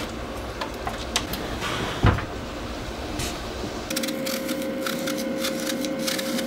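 A pan slid onto the rack of a propane oven, with light metal clicks and one dull knock about two seconds in. Then a knife peeling an apple: a quick run of small crisp cuts and scrapes over a steady faint hum.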